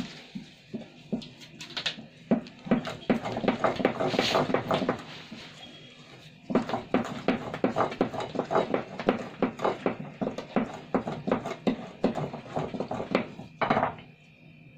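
A spatula and then a wooden spoon beat thick cupcake batter in a ceramic bowl: quick rhythmic stirring strokes, several a second, with a short pause about five seconds in.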